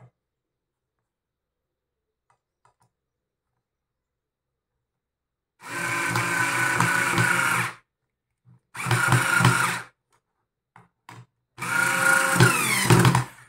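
Flipkart SmartBuy 3.6 V cordless screwdriver driving a screw into plywood in three runs of motor and gearbox whine, about two seconds each, with a few short clicks between them. Its pitch wavers in the last run as the screw seats.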